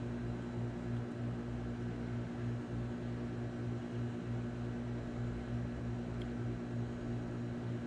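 Steady low machine hum with a faint hiss underneath, unchanging throughout.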